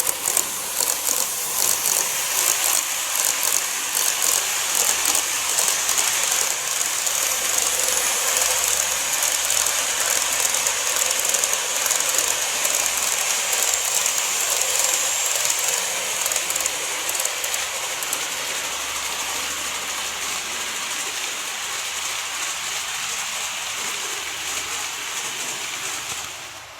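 N-gauge model train running along the layout track: a steady hissing rattle of wheels and motor with fine rapid ticking, easing down over the second half and dropping away right at the end.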